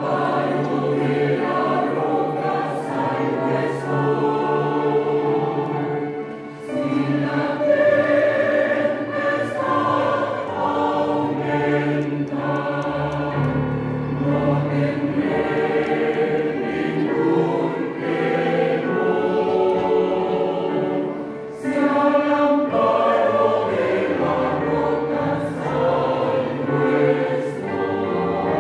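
Mixed church choir of men and women singing a hymn together, with two short breaks between phrases.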